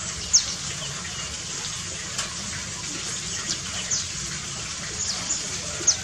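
Steady rush of running water in an aviary pool. Several brief, high bird chirps are spread across it, each dropping quickly in pitch, with the first one about half a second in the most prominent.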